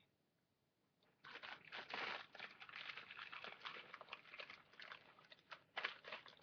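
A small plastic bag crinkling and rustling as it is handled, starting about a second in and going on in a busy, irregular crackle.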